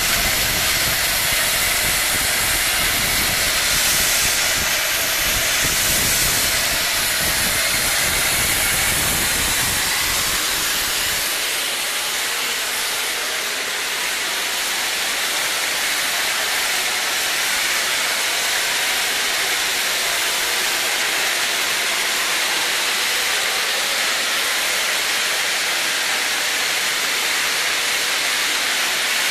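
Steam hissing steadily from a skid-mounted steam boiler, with a low rumble underneath that drops away about eleven seconds in.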